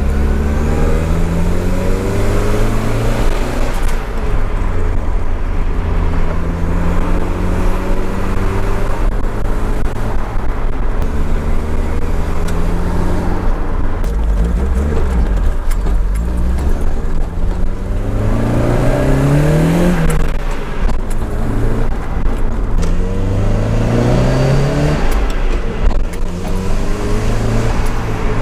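Nissan 200SX S13's CA18DET turbocharged 1.8-litre four-cylinder accelerating through the gears. The engine note rises repeatedly and falls back at each shift, about five times.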